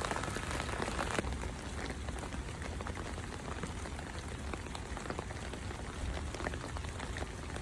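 Steady rain falling, an even hiss dotted with the taps of individual drops.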